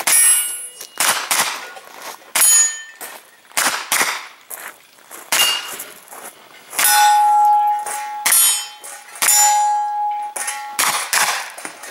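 A series of loud metallic clangs at irregular intervals, about a dozen, each with a bright ring. Two of them, in the second half, ring on steadily for more than a second.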